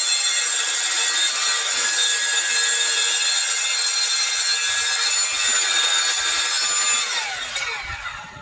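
Power tool cutting an FRP wall panel, a steady rasping cut over a motor whine. About seven seconds in the tool is switched off and the motor winds down, its whine falling in pitch.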